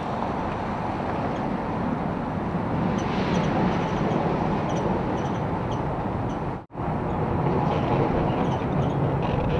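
Steady road traffic noise from a highway. It cuts out for a moment about two thirds of the way in.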